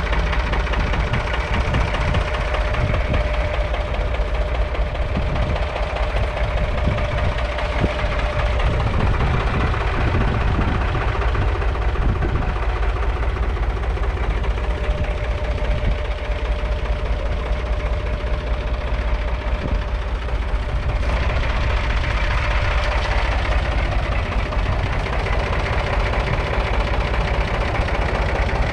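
The three-cylinder diesel engine of a 1966 David Brown 880 Selectamatic tractor idling steadily.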